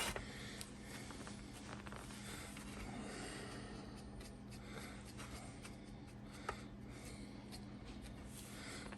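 Faint soft brushing and handling sounds of paint being brushed onto a plastic model figure, over a steady low hum, with one small sharp click about six and a half seconds in.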